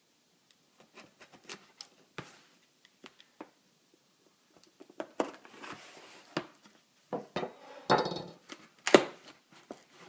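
Cardboard shipping box being opened: a kitchen knife slitting the packing tape with light scrapes and taps, then louder rustling and scraping as the cardboard flaps are pulled open, with a sharp knock about nine seconds in.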